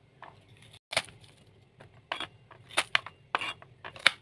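Kitchen knife cutting garlic cloves on a cutting board: irregular sharp knocks of the blade hitting the board, with scraping between them.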